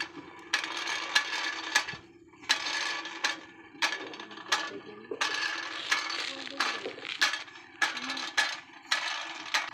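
Repeated short rattling, scraping bursts, about seven in a row, each starting with a sharp click, from a homemade tin-box toy with spool wheels being worked by hand.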